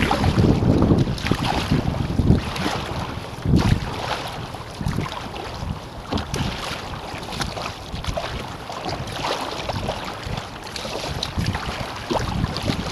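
Wind buffeting an action camera's microphone in uneven gusts, over water sloshing and splashing around a kayak being paddled.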